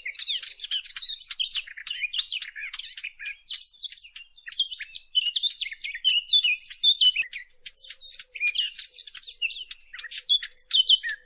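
Songbird song of the kind sold as a 'fig bird' hunting lure: a fast, unbroken stream of high chirps and warbled notes.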